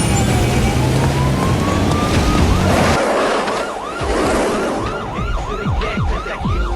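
Emergency vehicle siren in slow wail mode, its pitch falling and then rising. About two and a half seconds in it switches to the fast yelp, sweeping up and down two to three times a second. A low steady rumble underneath stops about three seconds in.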